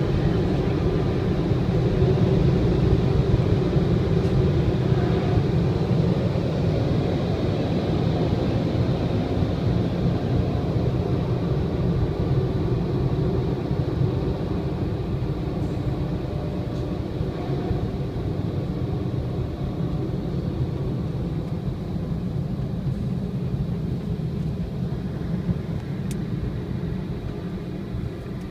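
Steady deep rushing noise of a tunnel car wash's drying section, with cloth strips and rotating chamois working over the car, heard from inside the car. It slowly fades over the second half as the car rolls out.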